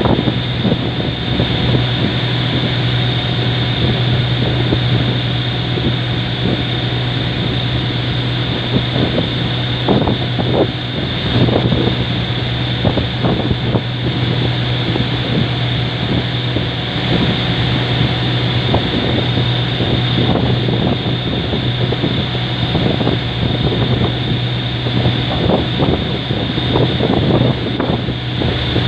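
A boat's engine running at a steady drone, with wind buffeting the microphone.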